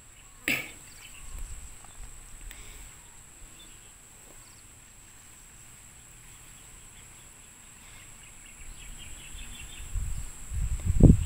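Quiet outdoor garden ambience: a steady high insect hum, faint repeated bird chirps late on, and a few soft handling sounds from plastic hose fittings. A short click about half a second in and low thumps near the end, the loudest of which comes just before the end.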